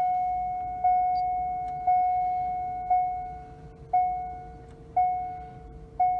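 2001 Chevrolet Corvette C5's dashboard warning chime, sounding about once a second as the ignition is on, each ding fading before the next. A faint steady whine runs underneath.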